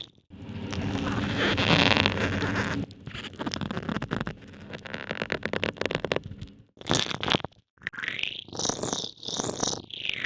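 Ice in water recorded underwater through a hydrophone. First comes a dense, rumbling stretch of crackling, then scattered sharp cracks and clicks. Near the end there are two arching squeaks that rise and fall.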